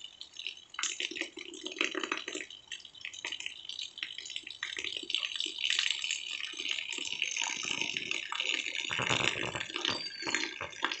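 Rain falling steadily, with rainwater pouring from a roof drain pipe and splashing: a constant hiss full of small drop pattering, growing fuller and deeper near the end.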